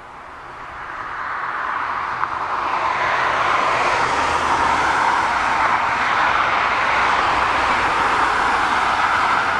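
Boeing 767-300ER's twin turbofan engines spooling up to takeoff power: the engine noise swells over the first three seconds, then holds steady and loud.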